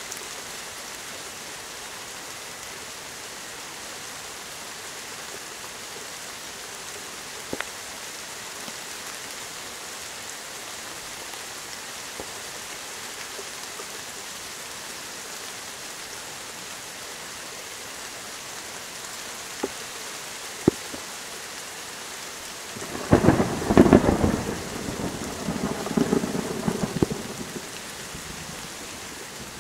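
Thunderstorm: steady rain falling as an even hiss, with a few sharp ticks. Late on, a peal of thunder cracks and rolls for about five seconds.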